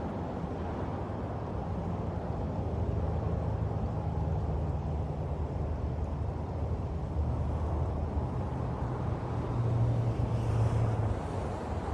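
An engine hum that shifts in pitch and swells louder near the end, over a steady rushing background.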